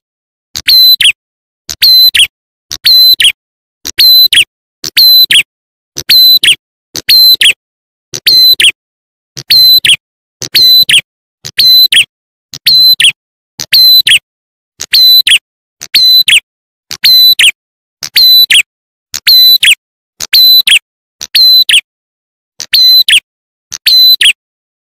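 Bird-lure recording of a prenjak atas (ciblek klawu) calling: a short, sharp, high-pitched call repeated evenly about once a second, each ending in a quick downward sweep, with one slightly longer gap late on.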